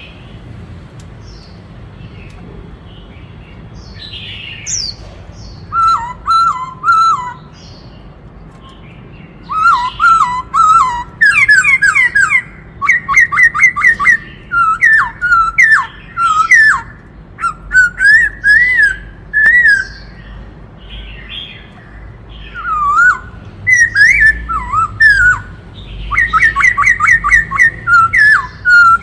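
Black-throated laughingthrush singing: loud phrases of rich whistled notes in fast repeated runs, starting about six seconds in after a few faint chirps, with short pauses between phrases.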